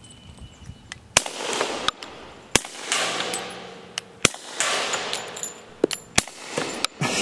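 Suppressed FNP-45 Tactical .45 ACP pistol fired in a slow string, roughly four shots about a second and a half apart. Each shot is a sharp muffled crack followed by a short trailing echo.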